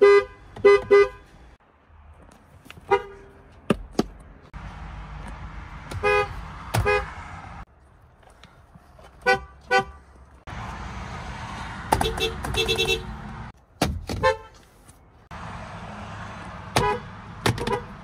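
A rapid string of different cars' horns, one car after another with abrupt cuts between them. Each horn is tapped in two or three short honks, and one car, about twelve seconds in, gives longer two-note blasts.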